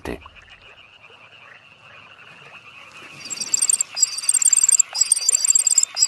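Common cuckoo chick begging for food with a rapid, high-pitched, chirping call. It starts faint and becomes loud and continuous from about three seconds in, with brief breaks. The call is as loud as the four Eurasian reed warbler chicks it has replaced, and the harder it calls the more its foster parents feed it.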